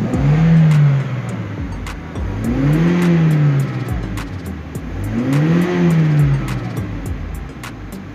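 Toyota Innova petrol engine revved in three throttle blips, each rising and then falling in pitch, about two and a half seconds apart. It climbs freely past 4,000 rpm, no longer held at 3,000 rpm now that its dirty MAF sensor has been cleaned.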